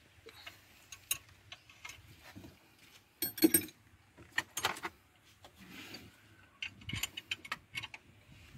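Irregular metallic clicks and clinks of hand tools and engine parts being handled, with a brief jangle of metal about three and a half seconds in.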